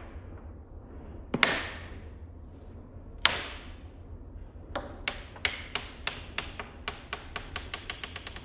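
Toy gun handling and firing: two sharp shots, each with a short ringing decay, about two seconds apart, then a run of quick mechanical clicks that speeds up to about five a second.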